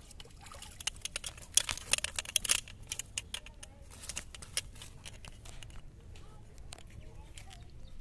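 A hooked fish thrashing as it is hauled out of the pond onto the muddy bank: a quick flurry of splashes and slaps about one to three seconds in, then a few sparser taps.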